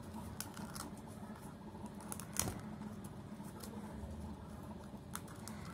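Fingers picking and scraping brittle fins and scales off a dried fish over a steel plate: faint scattered crackles and clicks, the sharpest about two and a half seconds in.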